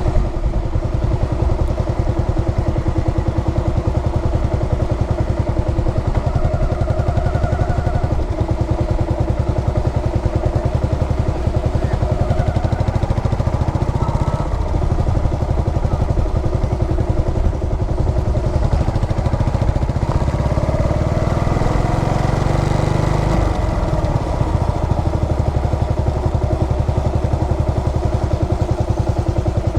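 Yamaha SR400's air-cooled single-cylinder engine running steadily, with an even beat of firing pulses and a brief change in its low tone about two-thirds of the way through.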